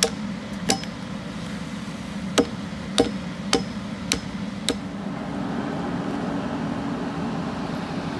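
A hatchet chopping into a peeled log to score it: seven sharp, uneven strikes in the first five seconds. A steady low hum runs underneath, and only that hum is left near the end.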